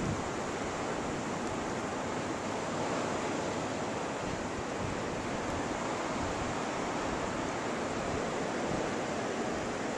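Blizzard wind blowing in a steady, even rushing hiss.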